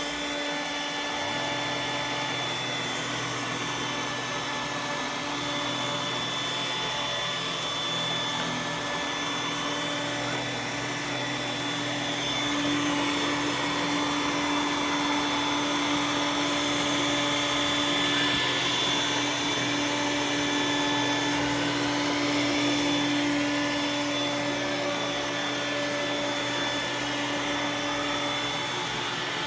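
iRobot Roomba s9 robot vacuum running, a steady motor whine over a rushing noise. A low hum joins about a second in, and it grows a little louder partway through.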